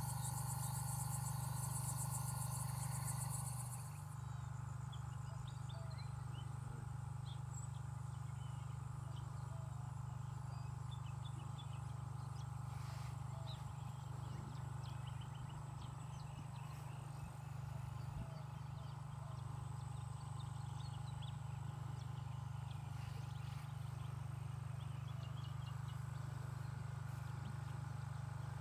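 Crickets chirping in a dense, high pulsing chorus that cuts off about four seconds in, giving way to an outdoor dawn ambience with scattered faint bird chirps over a steady low hum.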